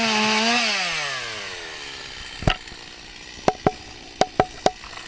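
Stihl MS250 two-stroke chainsaw running at full throttle, then released, its engine note falling steadily in pitch and dying away within about a second and a half. Then a knock, followed by five sharp knocks in the last two seconds.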